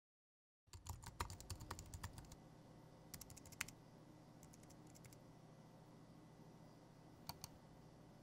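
Fingers typing on a laptop keyboard, a fast run of key clicks starting a moment in, then a few scattered short bursts, and two quick computer mouse clicks near the end, over a low steady room hum.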